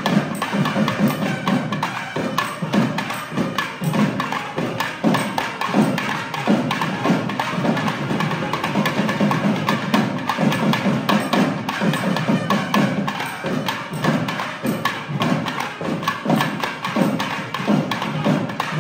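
Thavil drums beating a fast, dense run of crisp strokes together with a nadhaswaram ensemble, a South Indian temple band playing.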